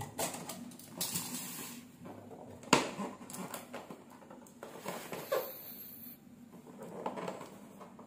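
Cardboard packaging being opened by hand: the seal tab torn loose and the box flap pulled up, with papery rustles and scrapes and one sharp tap about three seconds in.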